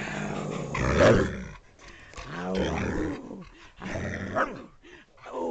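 A husky-type dog growling in play: about four drawn-out vocal growls that bend up and down in pitch, the loudest about a second in. It is play growling, all growly and no bitey.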